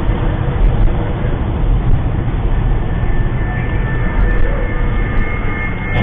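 Steady, loud road noise of a car driving on a highway, heard from inside the cabin: engine, tyres and passing trucks blended into one low noise without clear events.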